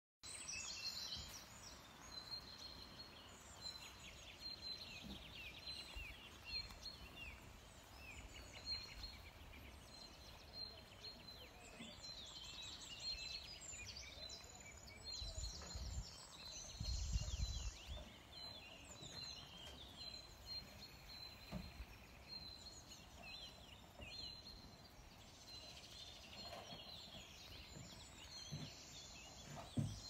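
Faint outdoor ambience of birds singing and chirping in quick repeated phrases from the surrounding trees. Wind buffets the microphone for a few seconds about halfway through.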